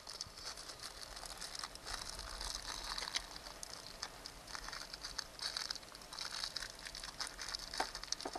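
Small plastic bag of loose metal connector terminals being handled and crinkled, with the terminals clicking against each other and against a plastic compartment box. It is a continuous soft crackle with small irregular clicks, and a few sharper ticks near the end.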